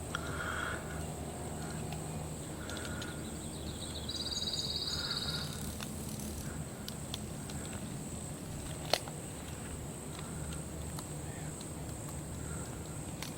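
Birds calling in woodland: a few short cawing calls, and a rapid high trill about four seconds in. A single sharp click or snap comes about nine seconds in, over a steady low hum.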